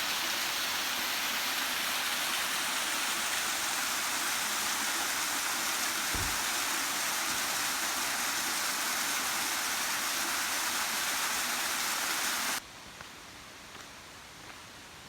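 Materia Falls' waterfall rushing in a steady, even roar of falling water, with one short low thump about halfway through. The rush cuts off abruptly near the end, leaving a much quieter background.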